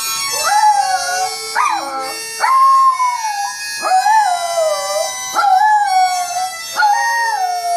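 Small dog howling along to a harmonica: about six howls in a row, each rising sharply then sliding down and wavering, over the harmonica's steady, tuneless chords.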